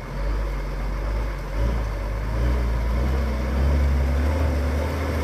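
Heavy diesel dump truck engine running under load, a deep, steady drone that starts abruptly and grows somewhat louder, with a slight rise in pitch midway.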